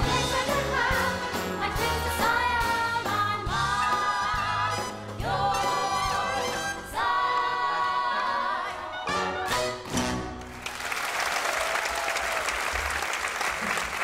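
A stage ensemble singing with a live band, building through long held notes to the end of the number about ten seconds in, followed by audience applause.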